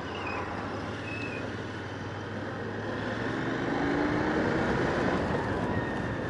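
Motorcycle riding, heard from a helmet-mounted camera: engine running under a steady rush of wind and road noise. About three seconds in, the engine note rises slowly and the sound grows louder as the bike speeds up.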